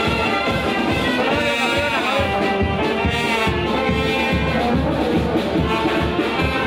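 Band music with brass instruments, playing steadily and loud.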